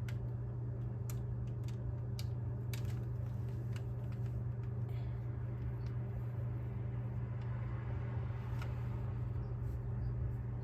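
Steady low background hum, with a few faint light clicks and rustles of a thin paper napkin being laid onto a glue-coated resin board.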